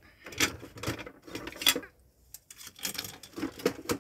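Hard plastic toys clattering and knocking as they are picked up and moved about, in irregular bunches of clicks with a brief pause about halfway.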